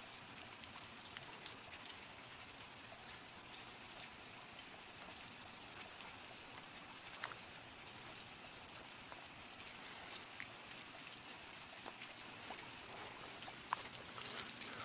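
Steady, high-pitched chirring of night insects, with faint hiss and scattered small clicks.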